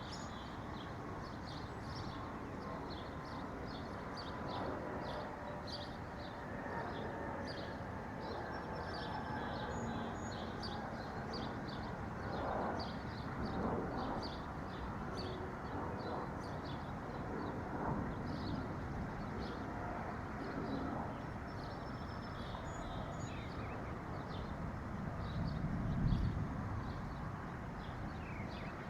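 Small songbirds chirping, short high calls repeated many times over a steady background hiss, with a single low thump near the end.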